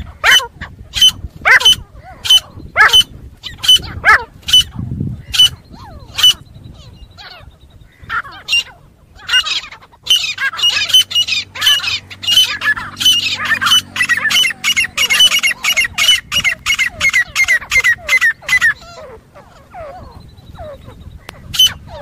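Grey francolin (teetar) fighting call: loud, sharp, repeated calls with a falling sweep, about two a second. Just before halfway they crowd into a fast run of many overlapping calls lasting about nine seconds, then thin out again. This is the aggressive call prized as a lure for hunting francolins.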